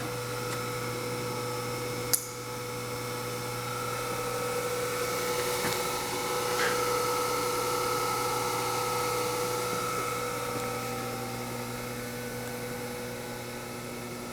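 Harig 6x18" ball-way surface grinder with its spindle running, a steady, even motor whine and hum; the spindle runs nice and quiet. A single sharp click about two seconds in, and the sound swells a little in the middle before easing.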